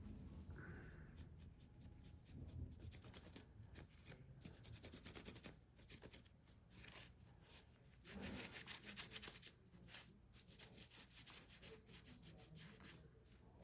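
Faint rubbing of a cloth working Flitz metal polish over a rusty folding-knife liner, in many short, quick strokes.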